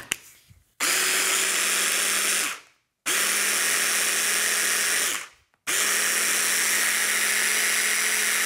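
Stick blender motor on a mini chopper bowl, run in three bursts: each starts abruptly with a steady whine and the first two wind down in pitch as they are released. It is chopping boiled mixed lentils with a little olive oil into a coarse paste.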